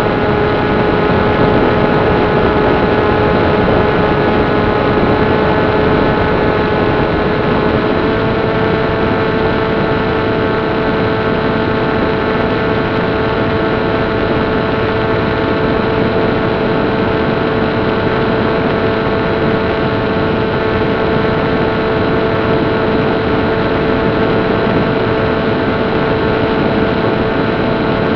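Brushless electric motor (Turnigy 2822-1450) turning a 7060 slow-fly propeller on a Hobbyking Dragonfly EPP plane in cruise, heard from on board over a steady hiss. It gives a steady, buzzy whine that steps up slightly in pitch about eight seconds in.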